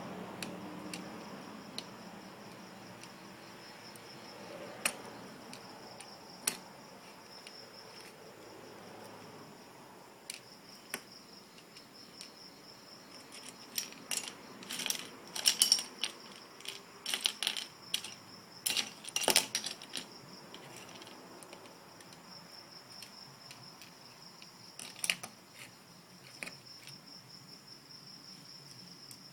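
Plastic Lego bricks clicking and clattering as they are handled and pressed together, in scattered small knocks with a busier run of rattling about halfway through, over a faint steady high-pitched hum.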